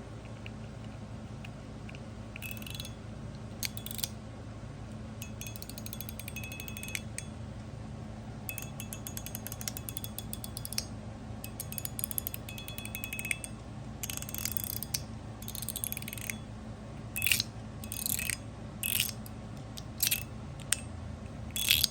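Titanium mechanical fidget slider being worked by hand: its spring-loaded balls click over the tracks in quick rattling runs, with louder single clicks later on, some leaving a short high ring.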